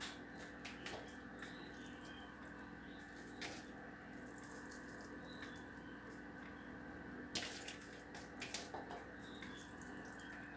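Light scattered taps and clicks of hands dropping grated vegetables onto batter in a metal baking tray and reaching into a steel bowl, over a faint steady hum. A couple of sharper clicks come a little past the middle.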